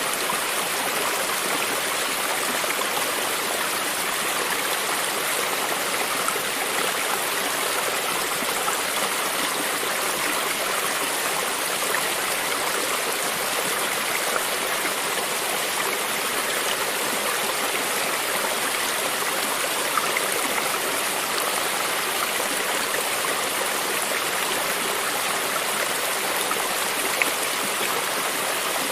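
A stream of running water flowing and splashing steadily, a bright even rush with small droplet splashes scattered through it.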